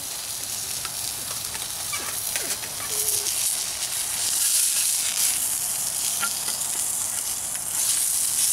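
Steady sizzling hiss at a small wood-burning camp stove, with a few light clicks of a camp pan being handled.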